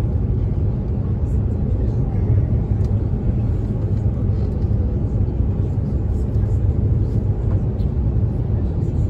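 Steady low rumble of cabin noise inside an Airbus A350-900 on its landing approach: airflow and engine noise heard through the fuselage.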